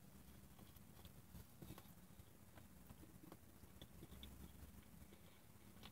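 Near silence: faint chewing and small mouth clicks from someone eating a biscuit sandwich, over a low steady hum.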